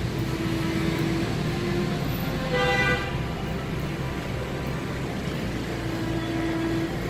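Steady low mechanical rumble, with a short horn honk about two and a half seconds in.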